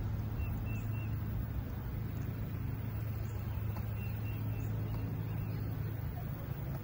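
Freight train passing at a steady pace, with a low, even drone and rumble.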